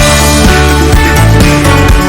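Loud background music with a steady beat and sustained instrumental notes.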